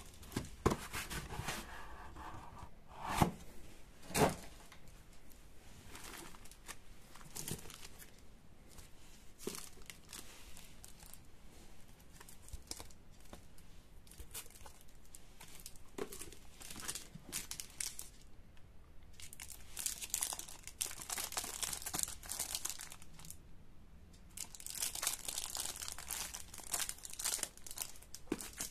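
Plastic wrapping and cardboard packaging of a model kit being handled and unpacked, crinkling and rustling. There are two sharp knocks a few seconds in, and longer spells of crinkling near the end.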